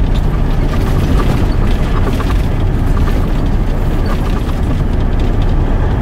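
Semi-truck's diesel engine and road noise heard from inside the cab while driving, a steady low rumble.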